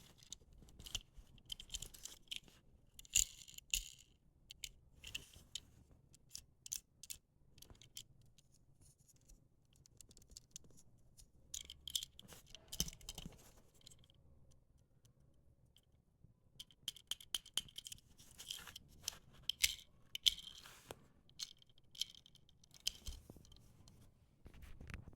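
Packaging of a Hot Wheels die-cast car being handled and opened: sharp plastic and cardboard clicks, crinkles and scrapes in irregular clusters, with quieter stretches between.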